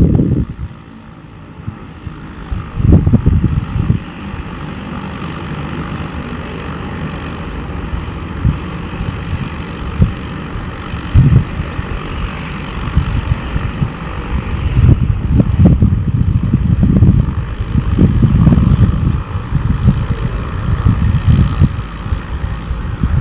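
Cessna Grand Caravan's Pratt & Whitney PT6A turboprop running, a steady turbine whine with propeller hum that slowly grows louder. Gusts of low rumbling buffet the microphone at intervals.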